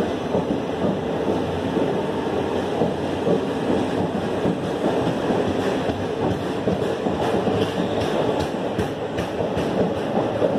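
Indian Railways passenger coaches rolling past on the platform line as the train departs: a steady rumble of wheels on rail, with clicks from the wheels crossing rail joints in the second half.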